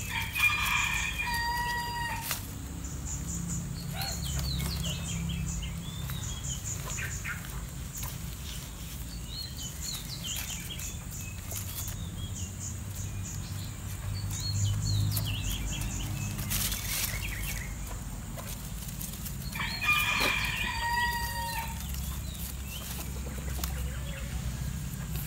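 A rooster crowing twice, once at the start and again about twenty seconds in, with small birds chirping in between. A few sharp clicks come from wire and branches being handled.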